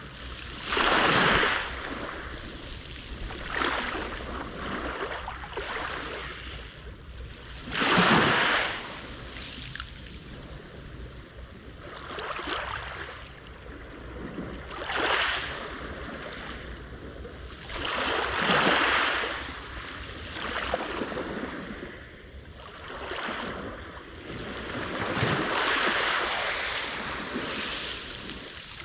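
Sea waves breaking on the shore one after another, each one swelling into a crash and then washing back, with the biggest crashes about a second in and about eight seconds in.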